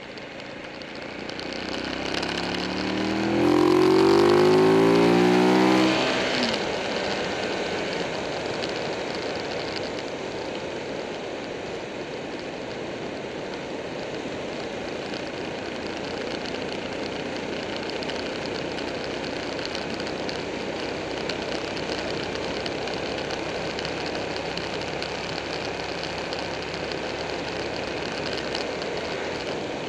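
Buell 1125R motorcycle's 1125 cc V-twin engine accelerating hard, its note climbing in pitch and growing louder over the first few seconds. It then settles into steady cruising, mostly wind and road noise with the engine running underneath.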